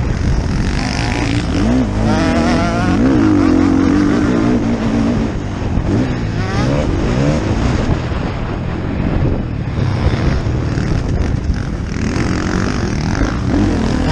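Motocross dirt bike engine revving hard, its pitch rising and falling over and over as the rider works the throttle and gears, heard from the rider's own helmet.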